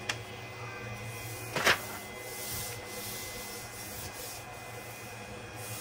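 Hands rubbing and smoothing an adhesive-backed flexible magnetic sheet down onto a 3D printer's aluminium print bed to press out air bubbles, over a steady low hum. One brief louder sound comes about one and a half seconds in.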